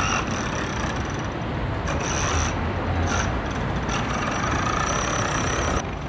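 City street traffic noise: a steady hum of passing vehicles, with a couple of brief hisses about two and three seconds in.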